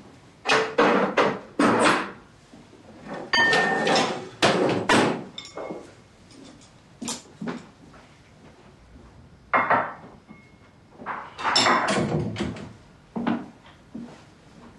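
A series of sharp knocks and clatters of hard objects, in several quick clusters with a few single knocks between them.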